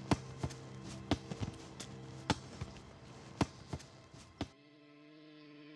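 Irregular sharp thumps, about ten over four seconds, over a low sustained music drone. About four and a half seconds in, the thumps and drone cut off and only a soft held synth chord remains.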